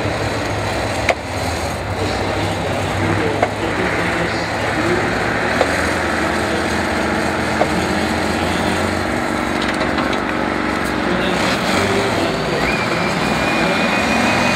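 Off-road trial truck's diesel engine working hard under load as the truck crawls through a steep, muddy section, its pitch rising and falling with the throttle.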